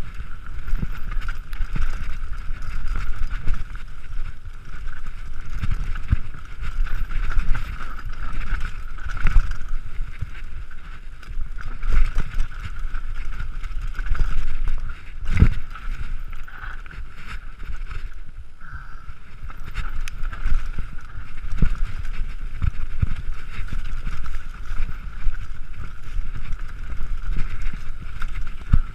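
Mountain bike descending a rough dirt trail at speed: wind buffeting the microphone and the bike rattling over roots and bumps with repeated knocks, the hardest impact about halfway through, over a steady high buzz.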